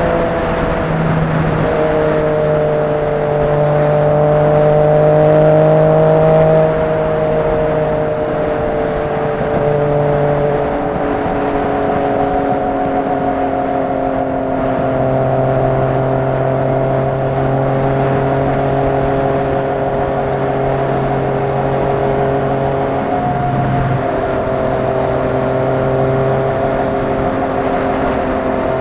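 Motorcycle engine running steadily at freeway cruising speed under wind rush, its note drifting slightly up and down, with a brief drop and recovery near the end.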